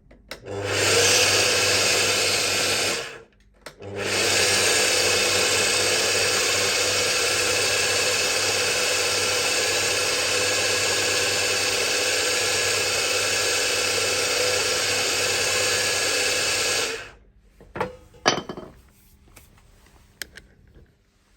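DeWalt DW718 mitre saw's motor run up twice, a short burst and then about thirteen seconds of steady running, each time stopping quickly. A few clicks and a knock follow near the end.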